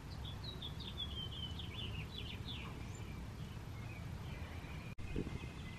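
A songbird singing, a run of short, high, falling chirps over the first three seconds or so, above a low steady outdoor rumble.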